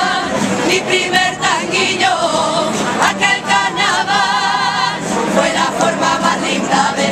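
A Cádiz carnival chorus (coro) of many voices, mostly women's, singing a song together in harmony. The held notes waver.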